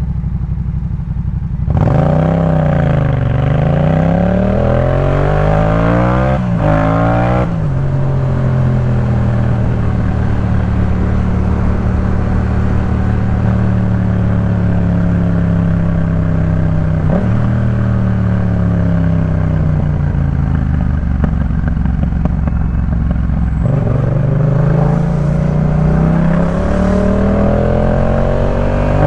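Yamaha MT-07's parallel-twin engine through a Jeskap K4 full exhaust, revving up and down through gear changes for the first several seconds. It then holds a steady cruise for about fifteen seconds and drops before accelerating again with rising revs near the end.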